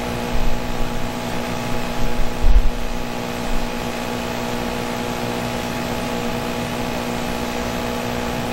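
Steady machine hum made of several constant tones over a low rumble, with a few brief low bumps about two and a half seconds in.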